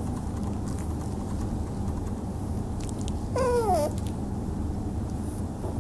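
A kitten mews once, about half a second long and falling in pitch, over steady low background noise.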